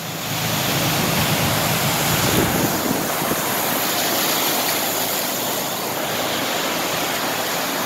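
Rushing, splashing floodwater as the wake of a semi-truck driving through the deep water surges up. The truck's engine is heard under the water noise in the first couple of seconds before it fades.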